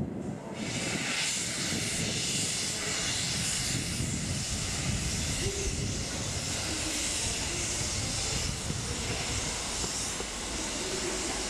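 JNR Class C61 steam locomotive C61 2 blowing steam from its open cylinder drain cocks, which clears condensed water from the cylinders as it moves off slowly. It makes a loud, steady hiss that starts about half a second in, over a low rumble.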